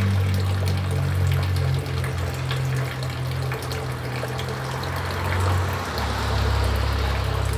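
Haier air conditioner's outdoor unit in its defrost cycle at −13 °C: a steady low compressor hum under a rushing, watery hiss. About six seconds in, the hum drops lower and the hiss grows.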